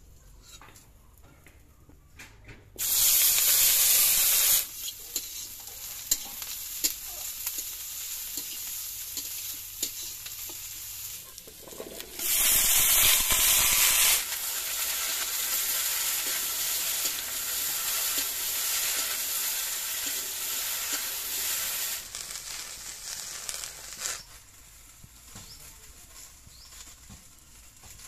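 Sliced okra frying in hot oil in a wok. A loud burst of hissing comes about three seconds in and a second one around twelve seconds. Between and after them it sizzles steadily while being stirred, then dies down to a low sizzle for the last few seconds.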